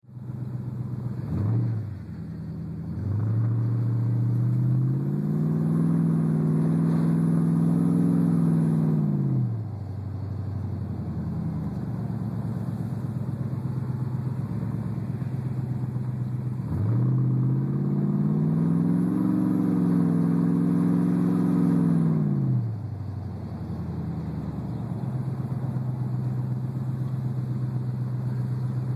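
Hemi V8 in a Ram pickup, revving briefly and then accelerating twice: each time the engine note climbs, holds for several seconds and falls back to a steady low drone.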